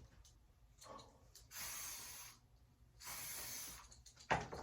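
Cologne sprayed twice from a spray bottle, two hissing spritzes each under a second long, followed by a short knock near the end.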